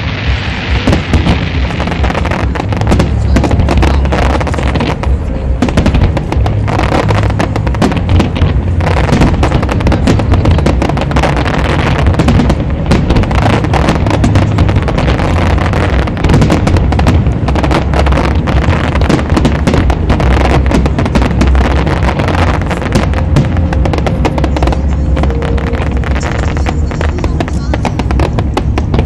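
Dense, continuous barrage of aerial fireworks: many shells bursting in quick succession, packed with rapid pops and bangs over a steady low rumble.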